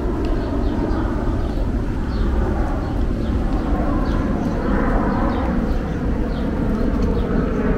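Steady low rumble of outdoor city ambience, with faint light ticks a few times a second.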